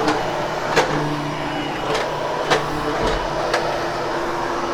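Vacuum cleaner running steadily over a carpet, with four sharp clicks as it is pushed along.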